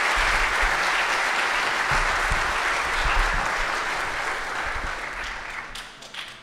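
Audience applauding, steady at first and then gradually dying away over the last couple of seconds.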